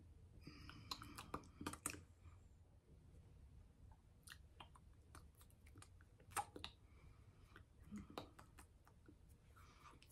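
Near silence with faint mouth noises: soft breathy mouthing in the first two seconds, then scattered small clicks and lip smacks. The strongest click comes about six and a half seconds in.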